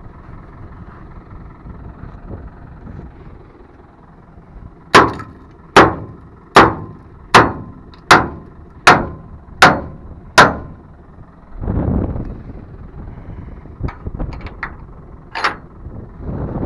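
Eight loud metal bangs, evenly spaced a little under a second apart, from blows struck on the steel manure trailer, over a tractor engine running in the background. A rush of noise follows, then a few lighter clanks.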